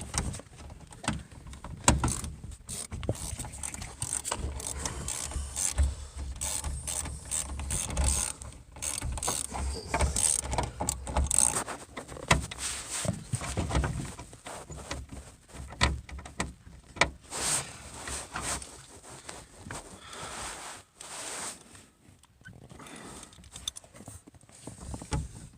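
Irregular clicking, rattling and knocking of hand tools and parts being handled while a van's rear door trim is taken apart to reach the latch cable.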